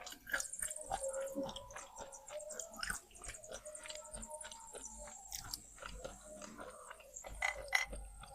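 A person biting and chewing wet slate pencils, with a dense run of small irregular crunches and crackles, a few sharper crunches near the end.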